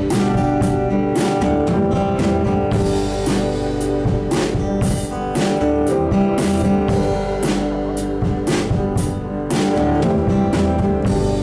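Live band playing an instrumental passage before the vocals: guitar over a drum kit keeping a steady beat.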